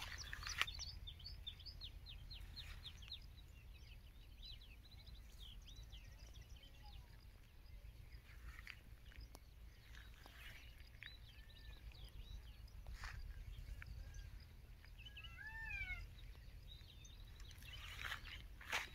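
Small birds chirping and twittering, with a clearer whistled call that rises and falls about three-quarters of the way through, over a faint low wind rumble. A few short crunching noises come through now and then.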